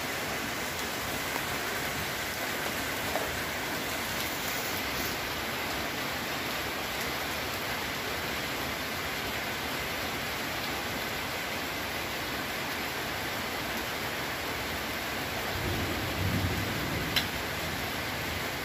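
Steady, even hiss of noise with no distinct pattern, like rain falling. Near the end comes a brief low rumble and one sharp click.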